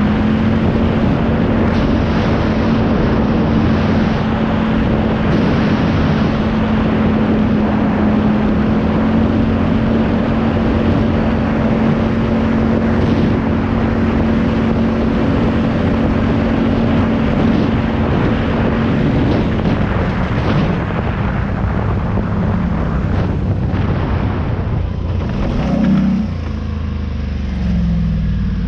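A vehicle engine running at a steady speed under a dense rushing noise. About two-thirds of the way through the engine's steady note drops away and it settles lower and more unevenly, with a brief surge near the end.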